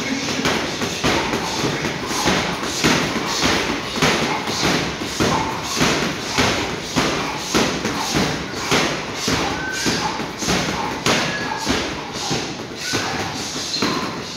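Boxing gloves punching a hanging heavy bag in a fast, steady series of thuds, about two a second.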